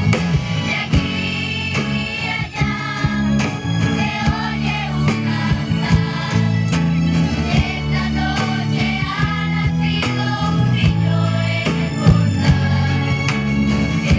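A song performed live, with singing over instrumental backing and a steady beat.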